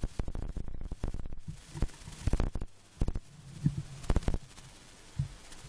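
A man drinking from a steel tumbler close to a microphone: an irregular string of low thumps and clicks from swallowing and the metal cup being handled.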